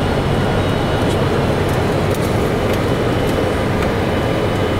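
Steady flight-deck noise of a Boeing 747-400 freighter on approach: the rush of airflow and the engines' rumble, with a faint thin high tone running through it.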